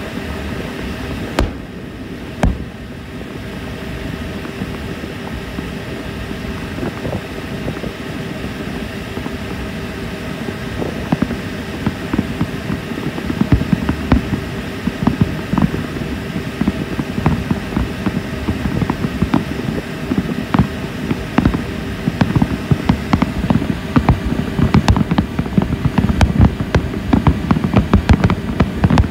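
Fireworks popping and crackling over a steady boat-engine hum: two sharp bangs early on, then pops that start about twelve seconds in and grow rapid and dense near the end.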